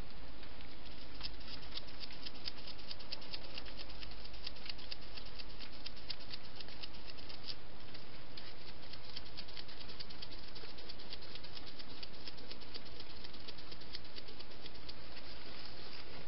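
European hedgehog moving about in grass and dry leaves close to the microphone: a rapid patter of small clicks and rustles, densest in the first half, over a steady hiss.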